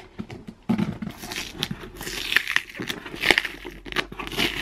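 Packing tape on a cardboard box being cut with a knife and torn, and the cardboard flaps pulled open: a run of short rips and crackles that starts about a second in.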